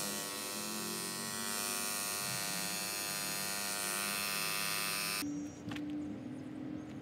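Portable electric tyre inflator running on a bicycle tyre, a steady, dense motor buzz that stops abruptly about five seconds in; a few faint clicks follow.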